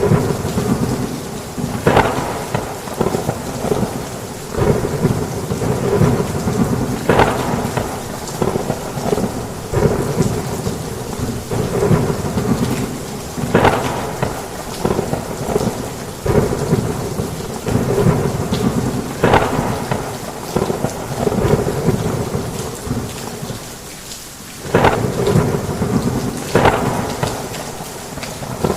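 Heavy rain pouring, with thunder rumbling low and steady and sharp cracks breaking through every few seconds.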